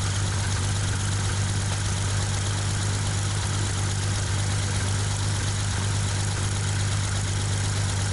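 1956 Cessna 172's six-cylinder Continental O-300 engine and propeller running steadily on the ground. It is being run up to check it after years in storage.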